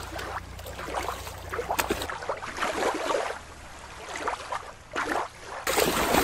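Water splashing and sloshing in shallow water. Near the end a toy orca is swept through the shallows, sending up a splash.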